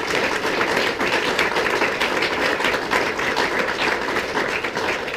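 A room of wedding guests applauding, a dense, steady clapping.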